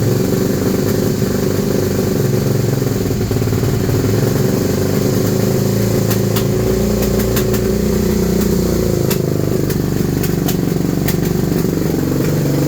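2001 Suzuki SV650's 90-degree V-twin engine running unevenly at idle, with a scatter of sharp pops from about halfway: the engine has just started misfiring and backfiring.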